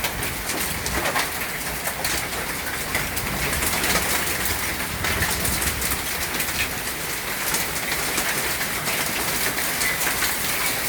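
Hail and heavy rain pelting outdoor surfaces: a dense, steady patter of countless sharp ticks over a hiss of rain.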